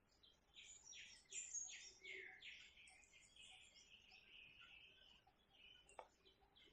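Faint songbird calls: a quick run of short high chirps about half a second in, then a longer warbling phrase. A single click near the end.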